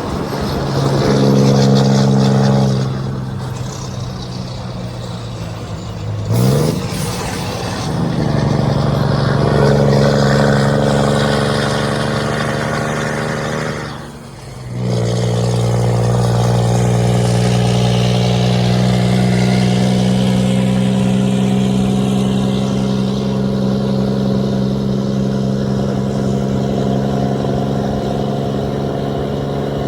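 Scania truck engine's deep exhaust rumble, running at a steady pitch, with a quick rev rising in pitch about six seconds in and a short dip in loudness around fourteen seconds.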